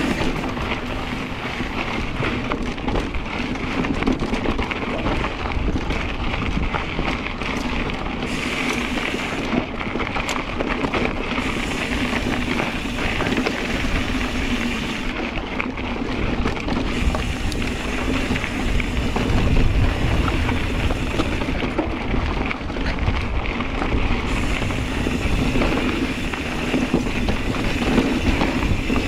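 Kona Process 134 mountain bike ridden over a rough dirt trail: steady rumble and crunch of tyres on rock and gravel with frequent sharp clatter from the bike, and wind buffeting the microphone.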